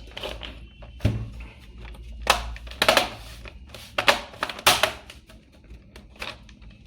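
About five sharp plastic clicks and knocks as a battery is fitted into a Dell laptop and the machine is handled.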